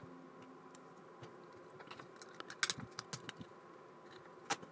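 Small plastic LEGO Technic pieces clicking as they are handled and pressed together: a quick run of light clicks about two to three and a half seconds in, and one more click near the end.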